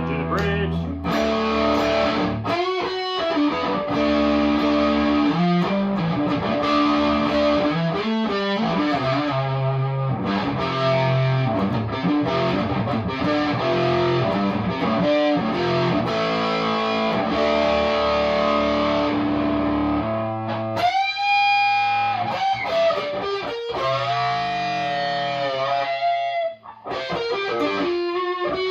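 Electric guitar, a Chibson Les Paul Custom copy played through a Marshall DSL40 combo with amp overdrive, playing held distorted chords, then from about 21 seconds in a single-note lead with bent notes.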